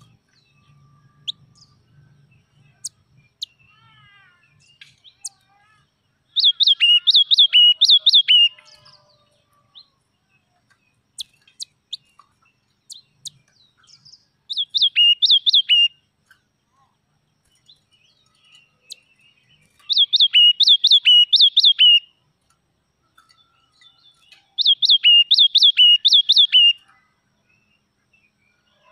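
A yellow-cheeked tit singing. It gives four loud phrases of about two seconds each, made of quick repeated falling whistled notes, with scattered short chip notes between the phrases.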